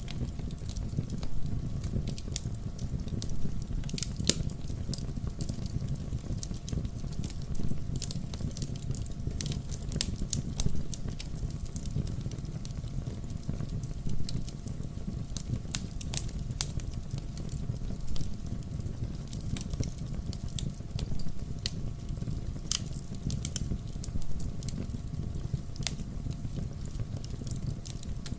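Wood fire burning in a fireplace: a steady low rumble of flame with many sharp, irregular crackles and pops.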